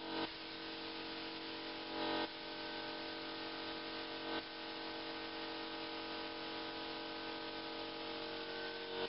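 Steady hum with a hiss of compressed air from a gravity-feed paint spray gun in use on an air line, with a few brief louder surges, about two seconds in and again about four seconds in.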